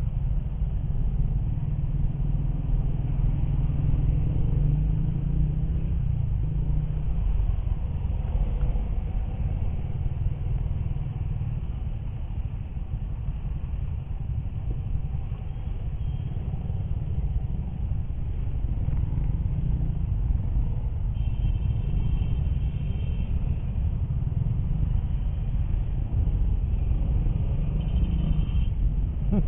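Motorcycle riding slowly in city traffic: a steady low rumble of its engine and the road, with no sharp events.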